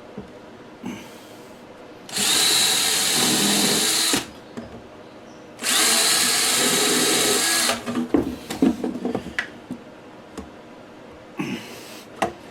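Power drill with a chamfering pilot bit boring a screw pilot hole through a drawer box into the drawer front. It runs steadily twice for about two seconds each, followed by a cluster of short knocks and rattles.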